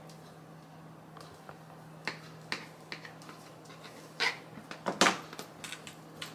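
Kitchen knife cutting through a block of potato gnocchi dough and clicking against the countertop several times. About five seconds in comes a louder clatter as the knife is laid down on the counter.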